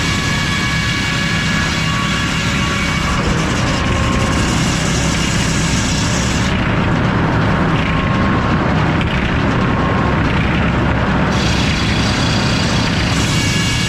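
Circular sawmill with an F-pattern inserted-tooth saw blade running, a loud steady machine noise with a high ringing whine. The upper hiss drops away for about five seconds in the middle, then returns.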